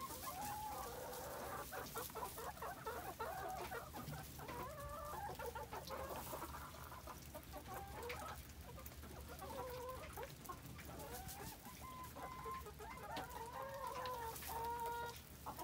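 A flock of backyard hens clucking and calling continually, with several longer, drawn-out calls near the end.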